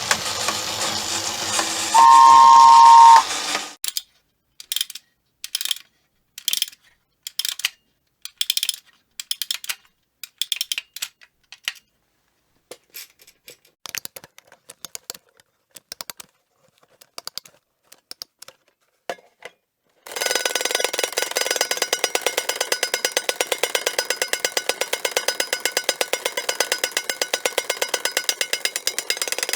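Battery-operated toy sounds in three parts: a whirring toy mechanism with a loud two-tone beep, then a string of short separate clicks and whirs, then a fast, even mechanical clatter that runs on steadily.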